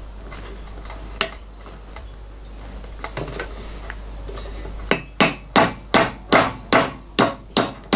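Quiet handling with a few light clicks, then from about five seconds in a quick run of about eight sharp hammer taps on metal, two to three a second. The taps are trying to drive a tight-fitting machined sleeve into the thin, out-of-round pipe end of an EGR cooler.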